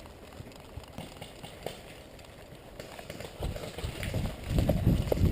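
Quiet footsteps and small clicks of gear, turning about three and a half seconds in to the heavy, low thuds of someone running, with the body-worn gear jostling.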